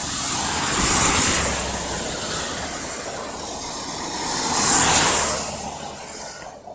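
Two vehicles passing one after the other on a wet road, the tyre noise swelling and fading, the first about a second in and the second near five seconds.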